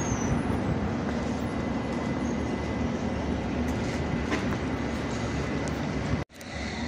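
London Underground S Stock train moving along the platform: a steady rumble of wheels on the rails with a faint, steady high whine. The sound cuts out suddenly for a moment near the end.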